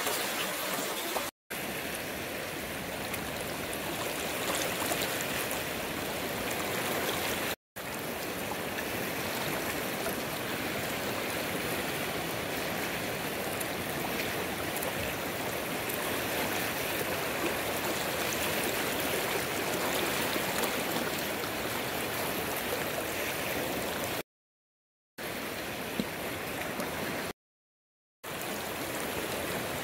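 River water flowing and rushing steadily, with a few brief cuts to silence.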